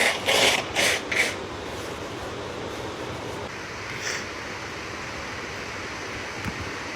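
Three short breathy sounds from a person in the first second or so, then a steady, even background hiss.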